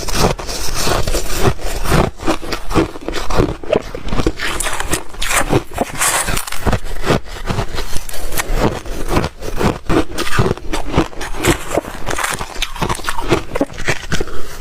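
Ice being bitten and chewed close to the microphone: a dense, irregular run of crisp crunches and cracks.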